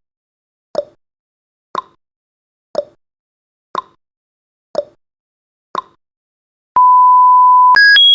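Countdown timer sound effect running out: a clock ticks once a second, alternating tick and tock, six times; then a steady one-second beep marks zero, followed near the end by an electronic alarm rapidly switching between two high tones.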